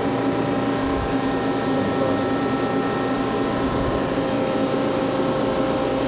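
Sub-spindle of a Hardinge Conquest T-42 CNC lathe spinning under power during a speed test, a steady whine of several tones over a light hum. Another tone joins about four seconds in, and the spindle sounds nice and quiet, a sign of healthy bearings.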